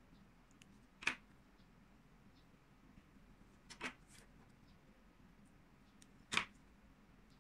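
Three short sharp clicks, each a couple of seconds apart, over faint room tone.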